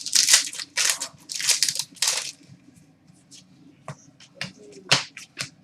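Hands handling trading card packs and cards: four short crinkly rustles of wrapper and card stock in the first two seconds or so, then a few light clicks and taps.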